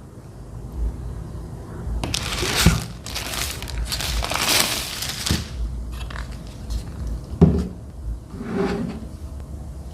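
Packaging handled during unboxing: rustling and crinkling in two stretches, with a few sharp knocks, the loudest about seven and a half seconds in.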